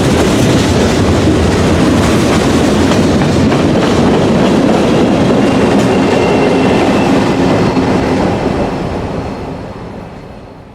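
Freight train rolling past close by: a loud, steady rumble of railcars with wheels clicking over the rail joints, fading steadily over the last few seconds.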